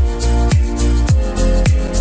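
Background electronic music with a steady kick-drum beat, a little under two beats a second, over held chords.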